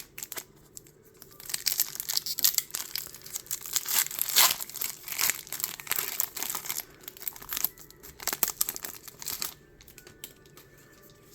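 Foil Pokémon booster pack wrapper crinkling and being torn open: a dense run of rustles and crackles that dies down near the end.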